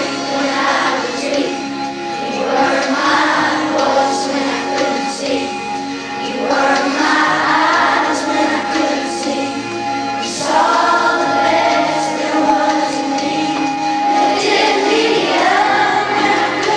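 A children's choir singing a song in phrases of a few seconds each, over an instrumental accompaniment.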